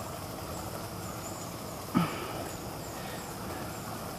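Outdoor rural background: a steady hiss of ambient noise with faint, short, high chirps repeating about twice a second, and one brief sharp sound about two seconds in.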